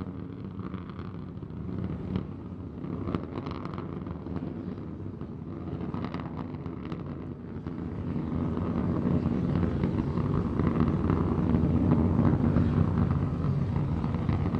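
Low, steady rumble of Starship SN15's Raptor rocket engines burning during ascent, growing louder about halfway through.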